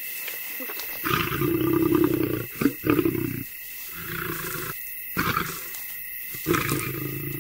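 Lioness growling and roaring. One long, loud call starts about a second in, followed by several shorter calls.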